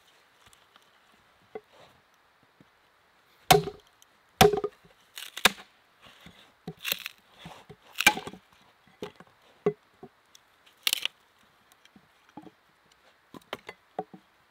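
Small hand axe chopping into a dry log: a series of sharp woody strikes, about seven loud blows roughly a second apart, followed by lighter knocks near the end as the wood is handled.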